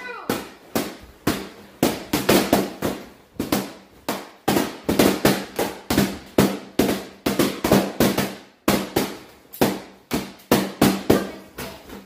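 Latex balloons from a balloon arch popping one after another as they are pricked with barbecue skewers: sharp pops at about three a second, irregularly spaced.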